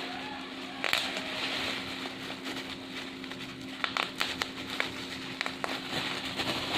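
Bubble wrap being handled and crinkled: a steady plastic crackling, with a sharp pop about a second in and a run of several more pops in the second half.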